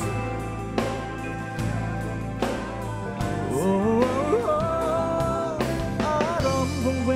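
Rock band playing live: a man singing lead, with wavering held notes, over acoustic and electric guitars, electric bass and a drum kit keeping a steady beat.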